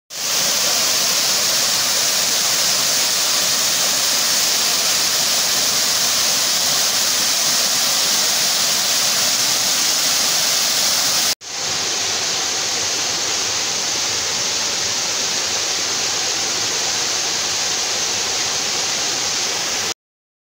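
Waterfall pouring over rock into a pool: a steady, loud rush of falling water. A little past halfway it cuts out for an instant, then resumes slightly quieter.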